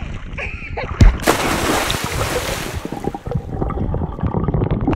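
Lake water splashing in the shallows around a toy monster truck: a sharp knock about a second in, then a burst of splashing, then muffled gurgling and sloshing heard from under the water.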